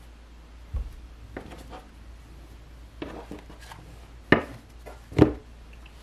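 Hands picking up and handling a deck of cards on a table: a soft thump, scattered light taps and rustles, then two sharp knocks about four and five seconds in.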